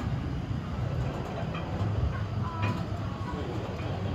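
Galloper carousel turning, a steady low mechanical rumble from the ride running.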